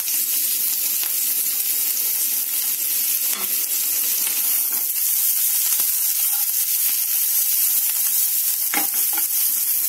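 Chopped onion and green chilli sizzling in a little hot oil in a nonstick frying pan as they are sautéed and stirred with a wooden spatula, with a couple of light knocks of the spatula against the pan.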